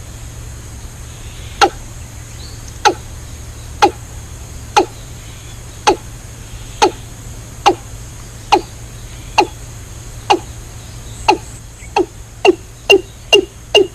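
Regular hollow tocks, each with a quick drop in pitch, about one a second, speeding up to about two a second in the last couple of seconds, over a steady low hum.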